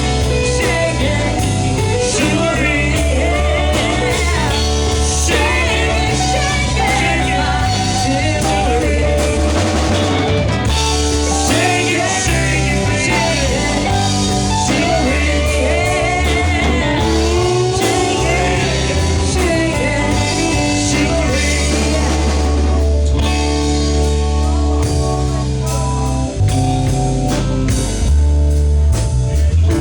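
Live bar band playing a blues-rock song: singing over drum kit and guitar with a steady beat.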